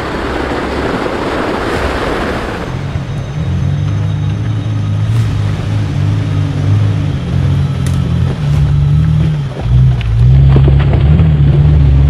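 Jeep engine running under load off-road, a strong low drone that comes in about three seconds in and grows louder near the end, with a brief drop partway through. Before it, a few seconds of rushing noise.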